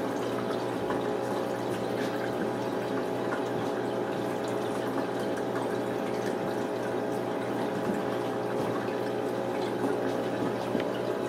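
Steady hum of a running machine with a rushing, water-like noise.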